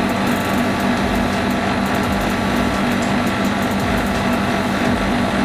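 Split-type air conditioner's outdoor unit running with a steady hum, compressor and condenser fan, while it is charged with R22 refrigerant to cure icing caused by low gas.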